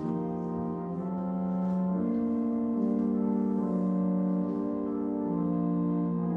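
Pipe organ playing slow, held chords that change about every second.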